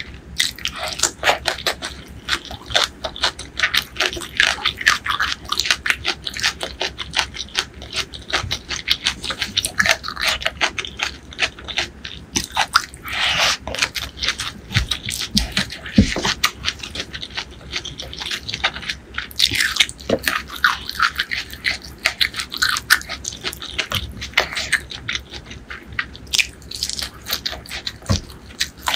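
Close-miked eating sounds: a steady patter of wet, sticky clicks as fingers squish and gather curry-soaked rice, mixed with chewing and mouth sounds.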